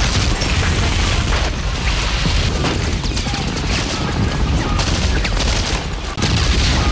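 Loud war sound effects, booms and bursts of gunfire, over a constant deep rumble in a dub reggae mix.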